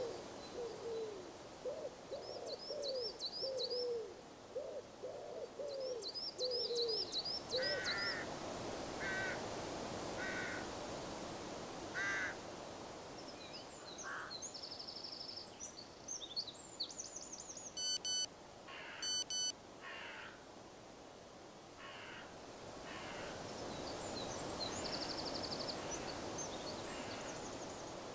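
Birds calling in open countryside: a run of low, repeated calls over the first seven seconds or so, small birds' high chirping trills throughout, and a few harsher mid-pitched calls further on.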